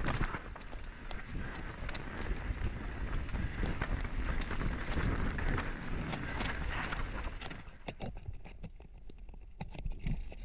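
Mountain bike descending a dirt forest singletrack, heard from a helmet-mounted camera: wind rushing on the microphone, tyres running over dirt and roots, and constant rattling clicks from the Fox Proframe RS full-face helmet carrying the camera. About eight seconds in the hiss drops away and the sound turns duller, while the rattle and low rumble go on.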